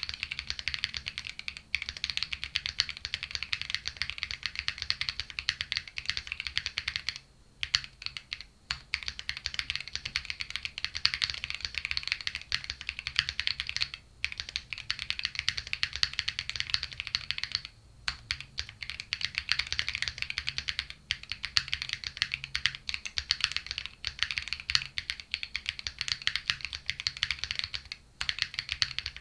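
Fast, continuous typing on a Luminkey65 gasket-mounted mechanical keyboard with Clackbits switches on an FR4 plate and Cherry-profile PBT keycaps; a crisp, clacky stream of keystrokes with a few brief pauses.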